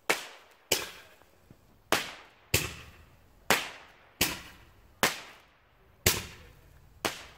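Roman candle firing its balls one after another: about nine sharp pops, each well under a second or so apart, every one trailing off quickly.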